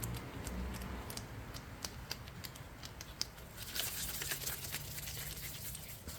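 Hands kneading two-part epoxy tank-repair putty: scattered small clicks and rustling, with a brief scratchy hiss about four seconds in.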